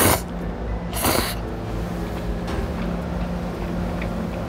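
A person slurping jjapaghetti noodles into the mouth: two loud slurps, one right at the start and one about a second later, then quieter chewing. A steady low hum runs underneath.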